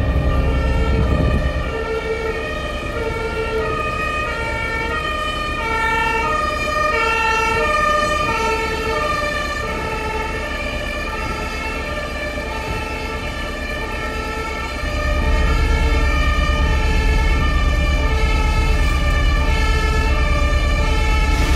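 German emergency-vehicle two-tone siren (Martinshorn) sounding, stepping back and forth between two pitches. A low rumble grows louder about 15 seconds in.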